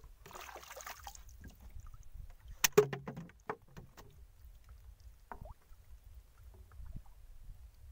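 A freshly caught fish being handled in a wooden dugout boat: a brief splashy rustle near the start, then a few sharp knocks against the boat, the loudest about three seconds in, over a steady low rumble.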